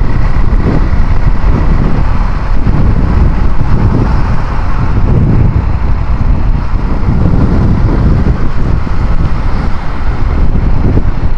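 Motorcycle ride: a loud, steady rumble of wind on the microphone mixed with engine and road noise.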